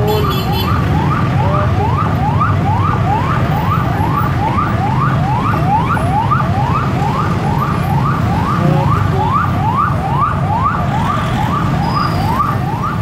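Ambulance siren in a fast yelp, a rising sweep repeating about twice a second, over the low rumble of vehicle engines in traffic.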